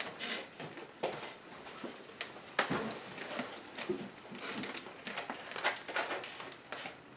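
Scattered rustles, taps and clicks of food, wrappers and packets being handled at the table while eating.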